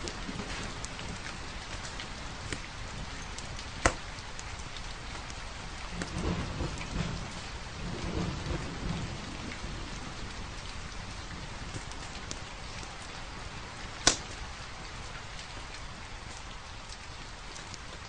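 Steady rain falling, with a low rumble from about six to nine seconds in. Two sharp pops from a crackling wood fire, about four and fourteen seconds in, are the loudest sounds.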